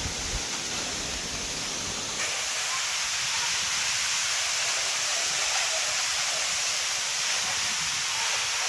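Waterfall rushing: a steady hiss of falling water. About two seconds in, a low rumble drops away and the hiss grows slightly brighter.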